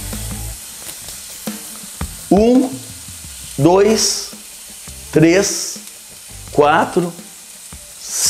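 Picanha searing on a hot grill grate over charcoal, a steady high sizzle of meat and fat.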